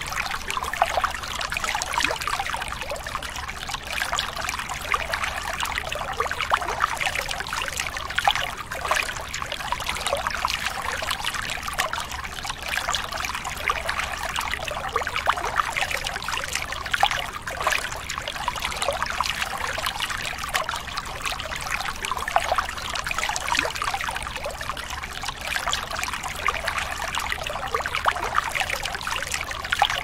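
Water running and trickling steadily, like a small stream splashing over rocks, with a fine crackle of many small splashes and no pause.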